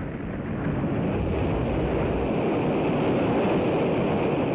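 Continuous rushing rumble of a rocket explosion in the air: a dense, even noise with no separate bangs, dipping briefly at the start and swelling back within the first second.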